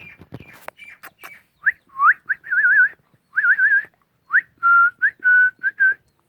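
A person whistling a run of short rising notes, quick warbling trills and a few held notes.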